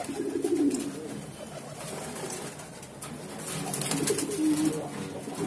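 Domestic pigeons cooing: low, rolling coos near the start, again about three and a half seconds in, and once more at the end.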